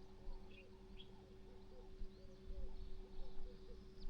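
Birds calling in the open: a run of short, low, repeated calls a few times a second, with a few higher chirps over them, and a faint steady hum underneath.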